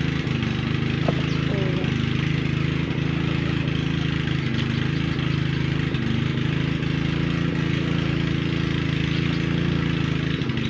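A steady low hum of an engine running at an even speed. A few faint clicks sound over it.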